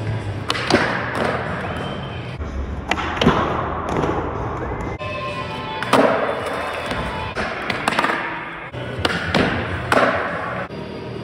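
Skateboards rolling on a concrete floor, with several sharp pops and landing cracks as the boards hit the ground during tricks. Music plays throughout.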